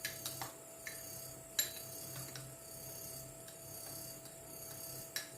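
Metal spoon clinking against a drinking glass, light irregular taps about nine times, with one louder clink about a second and a half in.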